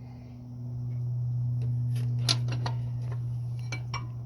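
A steady low hum that swells and then eases off, with a scattered few light clicks and clinks of hand tools.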